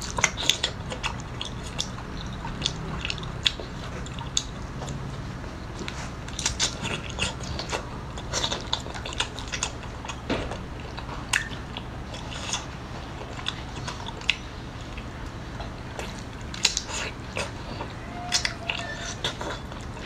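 Close-miked chewing of a cooked octopus coated in chili oil: wet mouth clicks and smacks coming in irregular clusters as the rubbery flesh is bitten and chewed.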